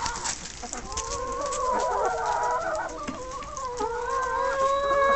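A flock of chickens clucking, with several long, drawn-out, wavering calls overlapping one another.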